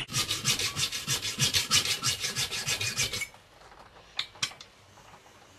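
Hacksaw cutting through a metal mounting bolt, with quick, even rasping strokes that stop suddenly about three seconds in. It is cutting off the bolt's excess length. Two light clicks follow near the end.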